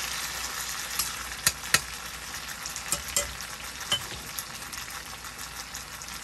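Masala-coated chicken sizzling steadily as it sautés in a stainless steel pan, with a few sharp clicks and taps in the first four seconds.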